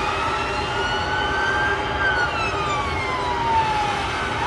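Emergency-vehicle sirens wailing, the pitch rising slowly for about two seconds and then falling, over a steady rush of city noise.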